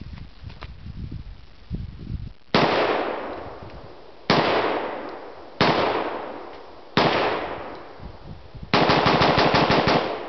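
Bushmaster AR-15 rifle in .223/5.56×45mm firing four single shots about a second and a half apart, each followed by a long fading echo. Near the end comes a rapid string of about a dozen shots in under two seconds.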